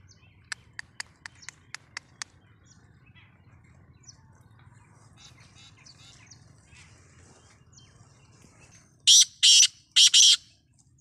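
A bird calling: a quick run of eight sharp ticks in the first couple of seconds, faint chirps, then near the end four loud, harsh calls in quick succession.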